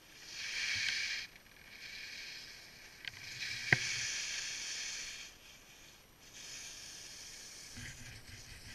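Snowboard edges scraping over groomed hard-packed snow through a series of carved turns: a hiss that swells and fades with each turn, with a sharp click about three and a half seconds in.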